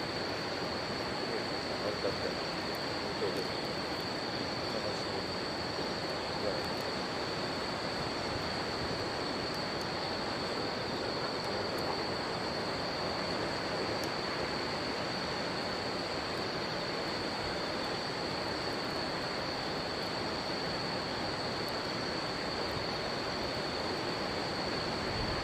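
River water rushing steadily under a continuous high, even insect trill, with occasional faint crackles from the wood fire.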